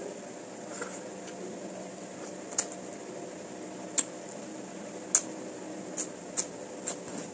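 A person eating a fish-head soup: half a dozen short, sharp clicks and smacks of eating, over a steady fan hum.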